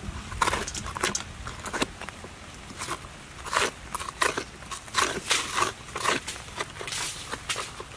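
Wax gourd flesh being scraped and scooped out of the hollowed gourd: a run of short, irregular crunchy scrapes.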